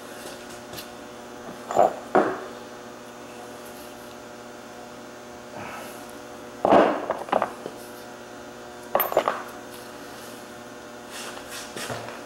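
Short clusters of knocks and clanks as a car wheel is fitted back onto the hub, about two, seven and nine seconds in, over a steady electrical hum.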